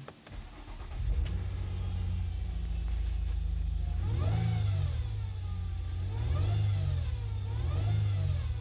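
2017 Nissan Altima's engine running and revved three times in the second half, with a thin whine that climbs and falls with each rev. This is the CVT transmission whine that the mechanic puts down to the oil strainer sitting against the transmission oil pump, so that the pump cannot draw enough fluid.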